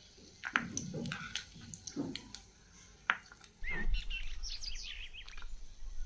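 Scattered light clicks and taps, then a quick run of chirping, like a small bird, over a low hum that starts a little past the middle.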